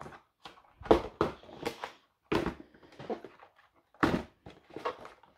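Handling noise from craft-kit packaging: a handful of short taps and rustles, spaced irregularly, with quiet gaps between them.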